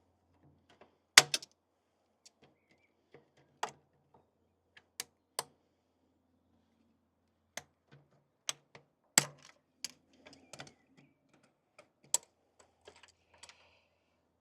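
Irregular sharp clicks and knocks of hand tools and plastic parts being handled during work in a car's engine bay, loudest about a second in and again about nine seconds in.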